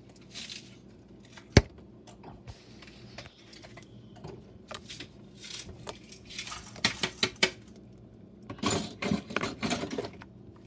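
Blue slime being squeezed, pressed and slapped on a countertop by hand: sticky clicks and small pops in quick clusters. There is one much louder, sharp click about a second and a half in.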